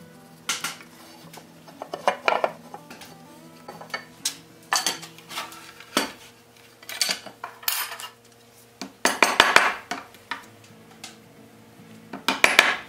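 Irregular metal clanks and clinks as steel strap plates, clamps and tools are handled and set down on a wooden sled runner, with a quick cluster of hammer strikes on a chisel near the end.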